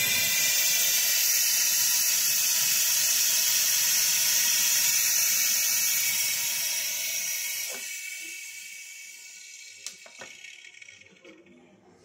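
Pressurized gas hissing out of a refrigerator's condenser line into a plastic bottle, blowing out the lacquer thinner used to flush the line as it is purged. A loud steady hiss for about seven seconds, then fading away, with a couple of faint clicks near the end.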